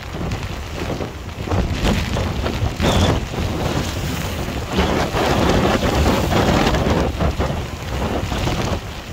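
Storm wind buffeting the microphone in gusts, with waves breaking and splashing against the rocks of the shore; it is loudest for a couple of seconds in the middle.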